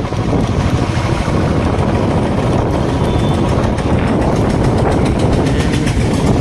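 Motorcycle engine running steadily while riding along, with road and wind noise.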